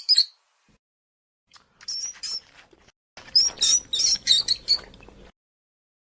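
Small bird chirping in quick groups of short, high calls: one group at the start, another about two seconds in, and a longer run from about three to five seconds in.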